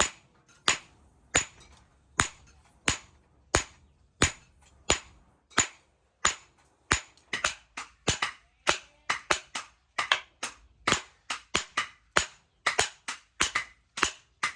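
Hand hammer striking hot steel on an anvil in forging blows, each with a short metallic ring. The blows come steadily about every 0.7 seconds, then grow quicker and less even, some in quick pairs, about halfway through.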